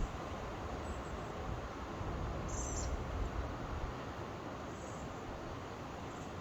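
Steady wash of Pacific ocean surf, with a deeper low rumble that eases about four seconds in. A short high chirp sounds about two and a half seconds in.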